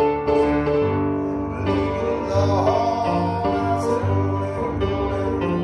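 Music: an instrumental band arrangement with singing, over a bass line that moves in step with the beat.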